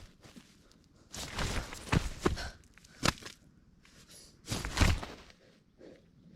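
Handling and moving-about noises: short bursts of rustling with dull thumps, in three groups, about a second in, around three seconds and around five seconds.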